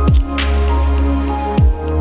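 Background electronic music: held synth chords over a deep bass note that drops steeply in pitch twice.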